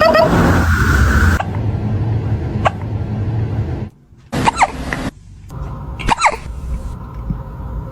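Kitten hiccuping: short, sharp hics a second or two apart, some carrying a tiny squeak of voice. A steady noise fills the first second and a half.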